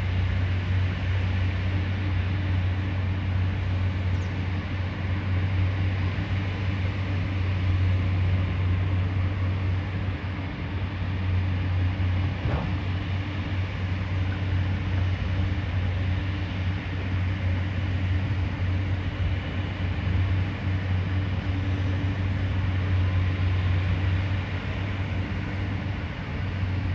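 JCB excavator's diesel engine running steadily at work, a deep even drone with hiss above it.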